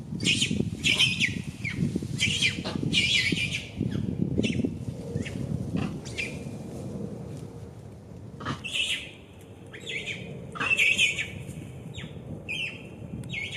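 Infant macaque squealing: a string of short, shrill, squawking calls at irregular intervals, typical of a baby monkey protesting at being refused the teat during weaning.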